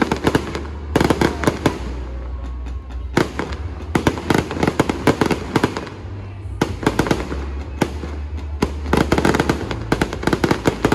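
Fireworks display: clusters of rapid, sharp crackling bangs coming in waves every second or two, with music playing underneath.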